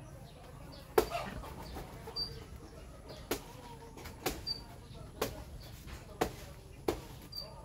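Chicken clucking: short, sharp clucks about once a second, with a few faint high chirps in between.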